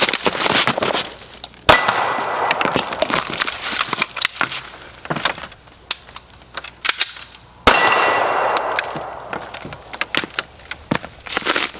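Two 9mm SIG Sauer P320 pistol shots about six seconds apart, each followed by a metallic ring that dies away slowly, like a struck steel target; light clicks and knocks in between.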